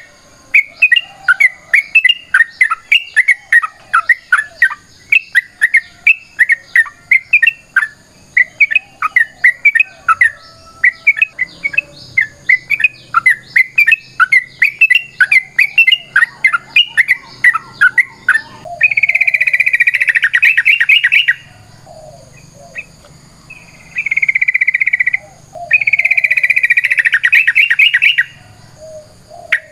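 Yellow-vented bulbul (trucukan) singing: a quick run of short, chirping notes, several a second, that gives way about two-thirds through to three long, rapid chattering rattles.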